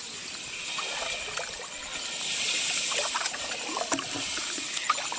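Water trickling and sloshing, with scattered light clicks and knocks; a hissing rush swells from about two seconds in and eases off near the end.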